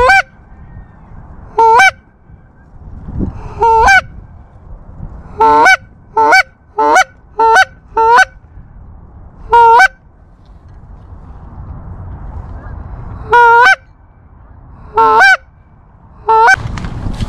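Canada goose honks, loud and short: about eleven in all, spaced out singly with a quick run of five in the middle. A low rumble of wind lies between them.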